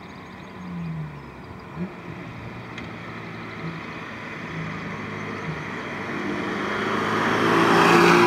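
A 2012 Volkswagen GTI (MK6) with a 2.0-litre turbocharged four-cylinder, a stage 2 tune, a catless 3-inch downpipe and a 2.5-inch AWE catback exhaust drives toward and past. Its exhaust note shifts in pitch and grows steadily louder, peaking in a loud rush of exhaust and tyres as it goes by close near the end.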